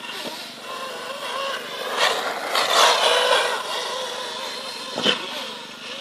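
Radio-controlled model car's small motor revving up and down as it drives across grass, loudest a couple of seconds in, with a sharp knock about five seconds in.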